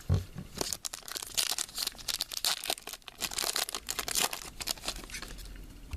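Trading-card pack wrapper being torn open and crinkled, a dense crackle of tearing and rustling for about four seconds, then quieter handling.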